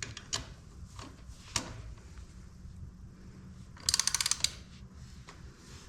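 Hand ratchet clicking as a dirt bike's front brake caliper bolt is tightened: a few separate clicks and taps, then a quick run of about ten clicks a little before the middle.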